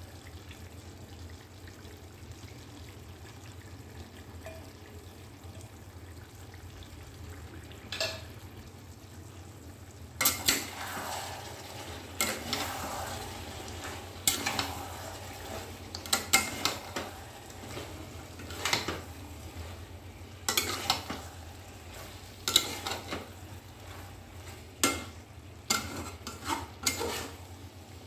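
Chicken curry frying in an aluminium kadhai, with a steady low hiss. From about ten seconds in, a spatula scrapes and knocks against the pan as the chicken and masala are stirred, a stroke every second or two.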